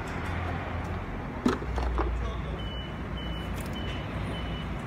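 A vehicle engine running with a steady low rumble. A single knock comes about a second and a half in, and from about halfway through a short, high electronic beep repeats about every half second.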